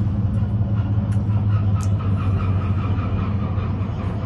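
Steady low engine drone, with a few faint high clicks.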